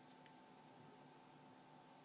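Near silence: steady background hiss and faint hum.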